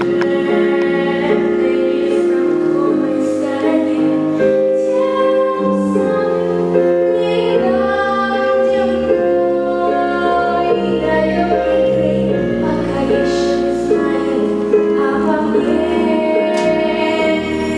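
Music with a female singing voice and steady held notes.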